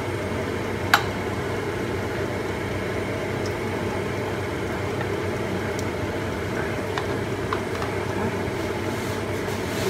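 Steady running noise of a gas hob heating water with lemongrass in a wok, with a faint hum underneath. A metal spoon clinks sharply once about a second in, and there are a few faint light taps later.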